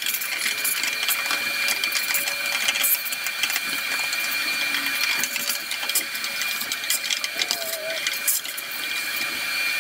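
Vacuum cleaner running with a steady high whine and hiss, its hose sucking dirt out of a truck's air filter box, with scattered clicks and rattles as debris goes up the hose.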